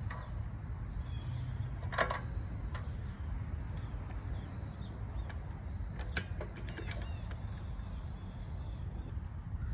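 Wrench clicking and clinking against the minibike's front fender bolts as they are tightened: a single click about two seconds in, then a run of clicks from about five to seven seconds in, over a steady low rumble.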